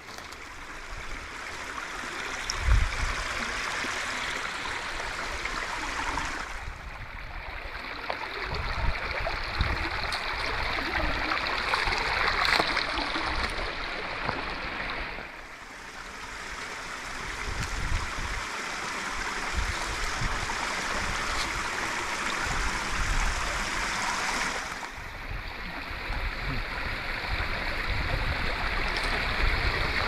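A creek running and babbling over rocks in a steady rushing wash, its sound shifting abruptly a few times. Scattered low thumps run underneath, the loudest about three seconds in.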